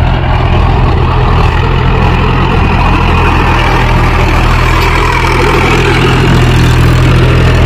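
Mahindra 415 DI tractor's four-cylinder diesel engine running steadily under load as it pulls a nine-tine spring cultivator through the soil, growing slightly louder as it passes close by.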